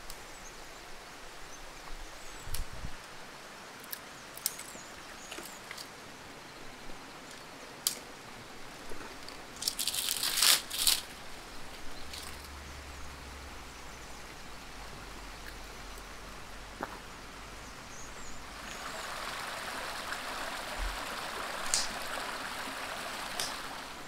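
Steady rush of a forest stream, with scattered sharp cracks and a loud burst of crackling about ten seconds in as dry branches and twigs are gathered and snapped for firewood. A louder rustling hiss sets in near the end.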